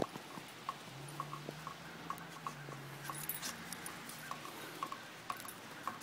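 Dogs moving about on light snow: a string of soft, irregular clicks and patters, two or three a second. A faint low hum sounds from about a second in for two seconds.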